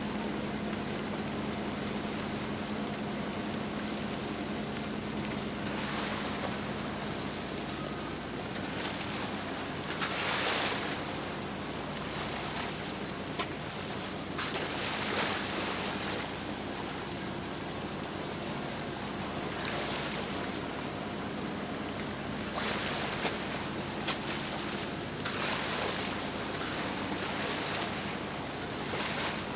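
Boat under way: water rushing and splashing along the hull over a steady low engine hum, the rush swelling louder every few seconds.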